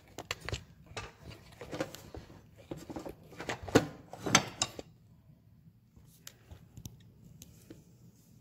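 Handling noise as the camera is moved and repositioned and things on a kitchen counter are shifted: a run of sharp clicks and knocks that stops about five seconds in, leaving a few faint ticks.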